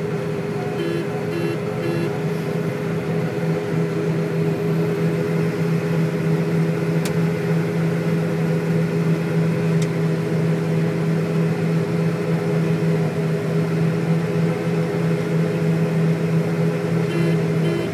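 John Deere STS combine harvester running steadily while harvesting soybeans: a constant mechanical drone with a strong low hum. Three short pitched tones sound about a second in and again near the end.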